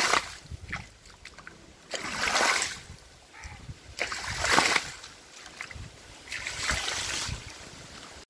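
Water splashing and gushing over soil and rocks in a small watering channel, rising in loud surges about every two seconds over a steady quieter rush.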